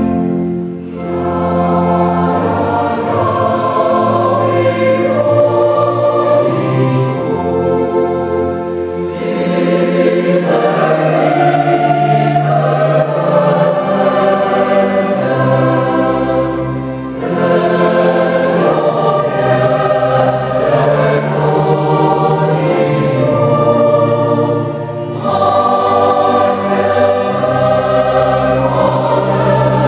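Mixed choir singing with a small string orchestra of violins, cello and double bass, in long sustained phrases with short breaks between them.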